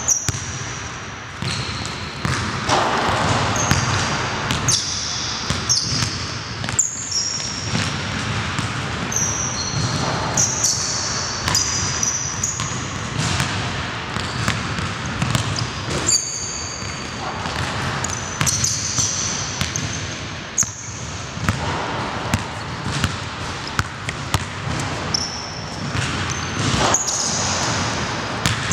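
A basketball being dribbled on a hardwood gym floor, bouncing repeatedly through play, with many short, high-pitched squeaks from sneakers on the hardwood.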